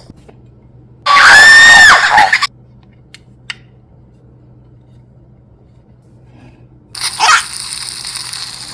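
A loud, high-pitched scream lasting about a second, starting about a second in. Two faint clicks follow, and a steady hiss sets in near the end.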